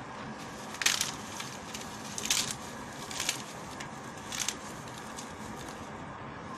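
Crisp papri wafers crackling as they are broken and dropped onto the chaat: four short crunches over a steady background hiss.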